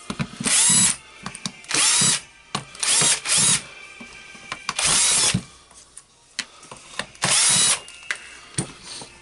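Cordless electric screwdriver run in about six short bursts, each a second or less, spinning up and stopping as it backs out the screws of a drill's plastic housing, with small clicks between bursts.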